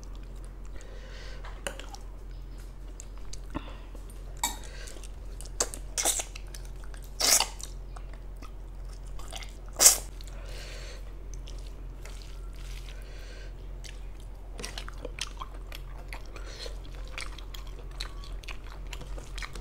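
Close-miked wet chewing and mouth smacking as rice and curry are eaten by hand, with scattered sharp smacks and clicks, the loudest about ten seconds in. A steady low hum runs underneath.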